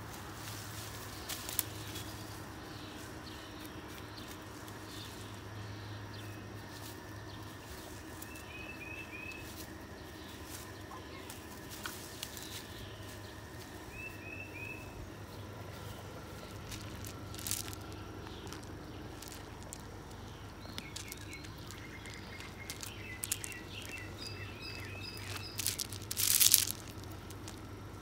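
Outdoor ambience: small birds chirping in short runs of three or four quick notes, over a steady low hum. Scattered rustles and knocks, the loudest near the end.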